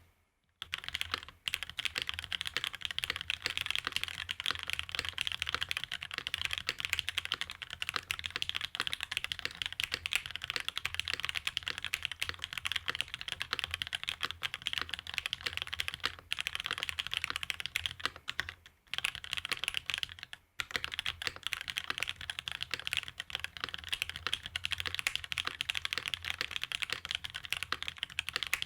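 Fast, continuous typing on a custom Ayleen TKL mechanical keyboard with Cherry Nixie switches, an aluminium plate and GMK Astral Light ABS keycaps: a dense stream of key clacks, with a few brief pauses.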